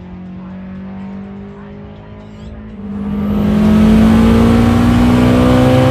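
Turbocharged 2007 Subaru Forester's flat-four engine at full throttle on a drag-strip pass, its pitch rising steadily as it pulls through one gear. About three seconds in it turns much louder, heard from inside the cabin at over 100 mph.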